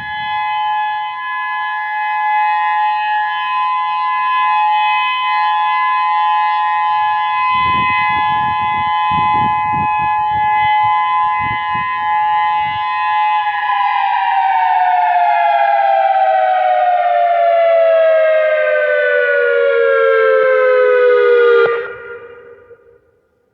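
Whelen WPS-3016 electronic outdoor warning siren sounding a steady chord-like alert tone, then gliding down in pitch from about 14 seconds in and cutting off near the end, the wind-down that ends the signal.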